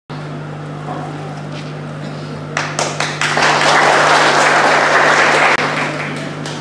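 Audience applauding in a large hall: scattered claps begin about two and a half seconds in, swell into full applause, and die away near the end.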